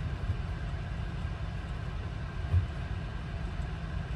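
Steady low rumble heard inside a semi truck's cab while the truck is being washed, with a single thump about two and a half seconds in.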